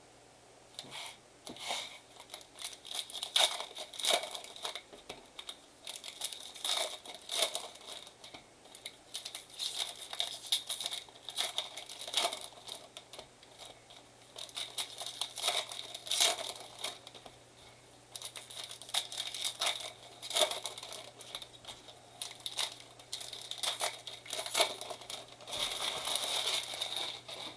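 Trading-card pack wrappers from a 2023 Bowman blaster box being torn open and crinkled by hand, in irregular bursts of crackling and tearing.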